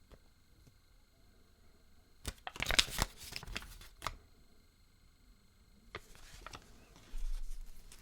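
Kinder Surprise egg wrapping and parts being handled: a burst of crinkling and clicking about two seconds in, then a few single clicks and a soft handling bump near the end.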